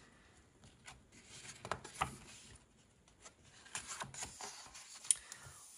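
Pages of a large colouring book being turned by hand: faint paper rustling and swishing, once about a second in and again near the end.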